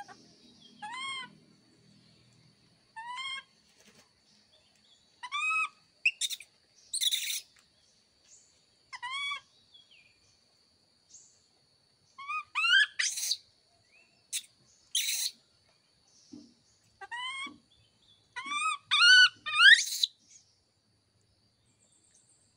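Baby monkeys giving short, high, arching coo calls, each rising and then falling in pitch, every second or two, with a few harsher, noisier cries among them. A thin, steady high whine runs underneath.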